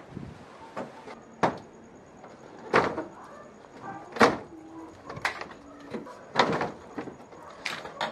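Plastic front bumper cover of a Mitsubishi Mirage being pried and pulled off by hand: a string of sharp plastic clacks and knocks as its clips let go, roughly one a second, the loudest about four seconds in.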